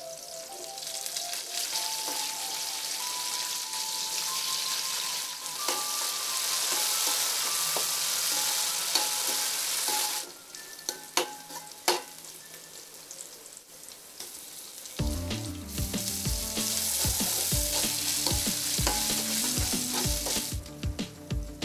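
Food sizzling as it fries in hot oil in a pan. The sizzle dies down for a few seconds, with sharp clicks of a utensil against the pan, then comes back. Background music plays throughout, with a beat coming in about two-thirds of the way through.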